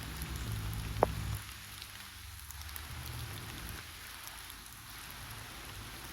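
Campfire crackling: a steady hiss with scattered small crackles and one sharp pop about a second in.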